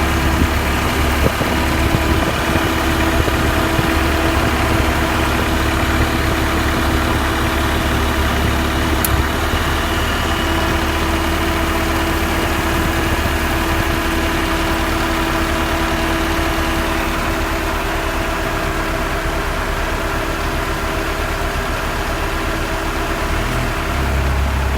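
1991 Honda Civic's four-cylinder engine idling steadily with the newly replaced Matsushita AC compressor running, free of the earlier rapid ticking. A sharp click about nine seconds in, after which the deep hum drops and a steadier tone takes over.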